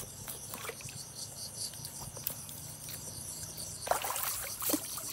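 A hooked fish thrashing at the water's surface, with a short burst of splashing about four seconds in, over a steady chorus of crickets.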